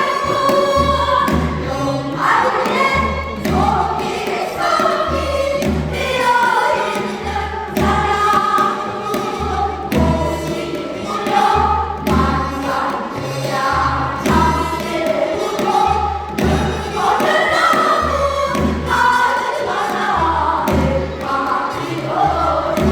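Korean folk song sung by a master singer, with other voices joining in, over a steady low rhythmic beat.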